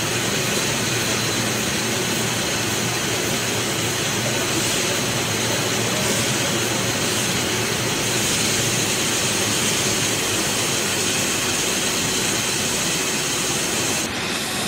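Steady running noise of a brewery bottling line: stainless-steel slat-chain bottle conveyors and plant machinery running, with a strong continuous high hiss and no separate knocks.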